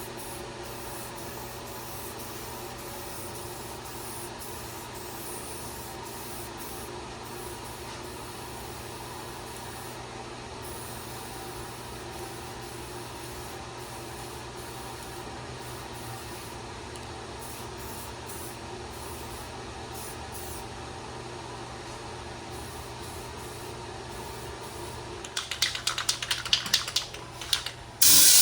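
Steady hum of a running motor in a garage. About 25 seconds in come several short hissing spurts of spray paint, and just before the end a continuous spray of paint starts.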